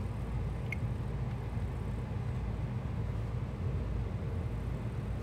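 Steady low hum or rumble with no change in level, and one faint click about a second in.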